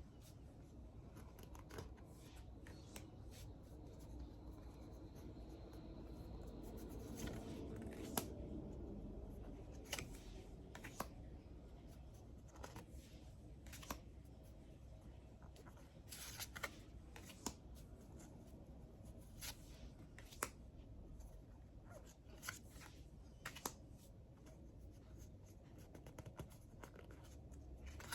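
Faint clicks and slides of tarot cards being handled and set down one at a time, over a low background hum. A low rumble swells briefly about seven seconds in.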